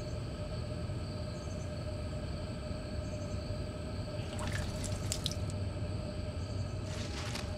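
Eerie ambient drone of steady held tones over a low rumble, with short watery splashing sounds about four and a half seconds in and again about seven seconds in.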